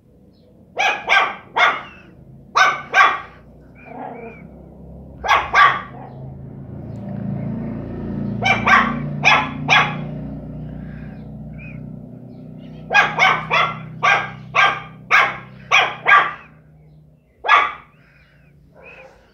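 Miniature pinscher puppy barking at a cat in short, sharp bursts of two or three barks, then a quick run of about eight barks and one last bark near the end. A low growl runs under the barking through the middle stretch.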